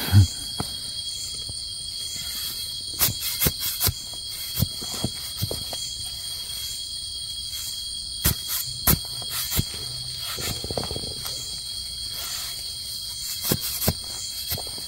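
Steady high-pitched drone of forest insects, with scattered sharp crackles and snaps of dry leaf litter and twigs being stepped on or handled.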